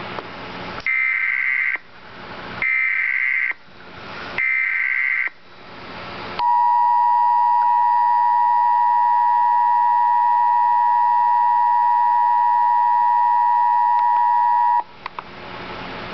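Emergency Alert System broadcast opening. Three short, high-pitched warbling screeches of the digital SAME header data are separated by hiss. They are followed by the loud, steady two-tone EAS attention signal, which holds for about eight seconds and then cuts off sharply. Together they signal that a warning message, here a severe thunderstorm warning, is about to be read.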